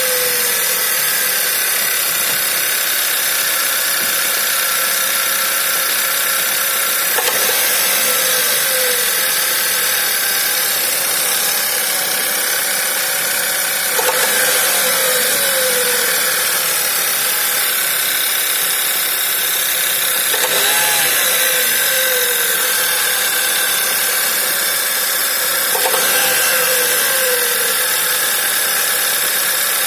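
VW Passat B6's 1.8 TSI (BZB) turbocharged four-cylinder petrol engine idling. A knock recurs about every six to seven seconds, each followed by a short falling tone. The owner cannot work out what causes it.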